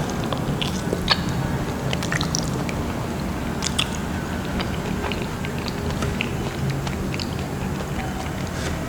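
Close-miked chewing of soft durian flesh: wet smacks and small mouth clicks scattered irregularly over a steady low hum.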